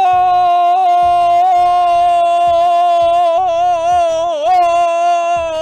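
A man's loud, long-drawn 'Goooooal!' shout in the style of a soccer commentator's goal call, held on one high pitch throughout with slight wavers.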